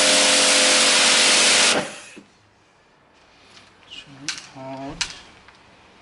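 Karcher K7 pressure washer running and spraying, a loud hiss of water over a steady motor hum, cutting off abruptly about two seconds in. It is then much quieter, with a short pitched sound and a few clicks about four to five seconds in.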